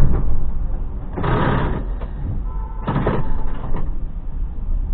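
Steady low vehicle rumble with two short, harsh noisy bursts about a second and three seconds in, in the moments after a tram has struck a car.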